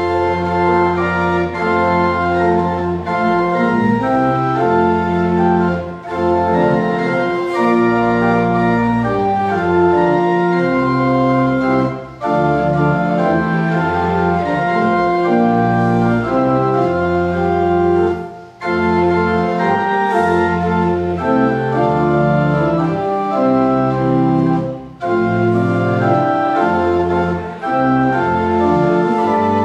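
Church pipe organ playing a hymn in full sustained chords over a deep bass, in phrases of about six seconds with a brief break between each.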